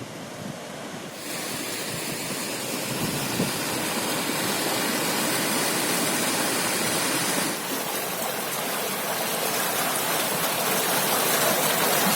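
Water falling over a river dam and waterfall, a steady rushing noise that grows fuller and brighter about a second in and dips briefly past the middle.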